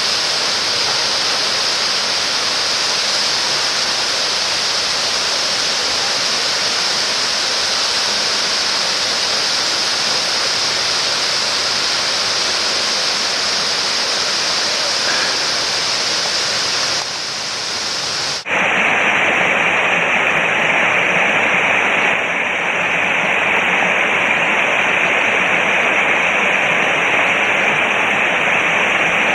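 Crabtree Falls' water rushing, a loud steady noise with no breaks. About eighteen seconds in, after a brief dip, it changes abruptly to a brighter, differently coloured rush.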